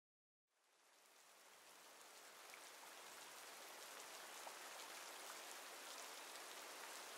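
Near silence for about a second, then a faint, even hiss with scattered light crackles fades in and slowly grows louder.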